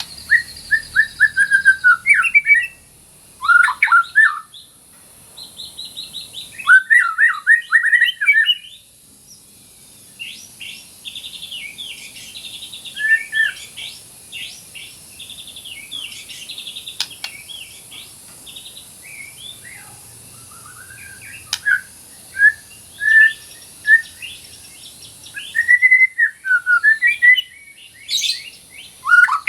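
White-rumped shama singing a long, varied song of loud whistled phrases, quick rising and falling notes and fast buzzy trills, broken by short pauses.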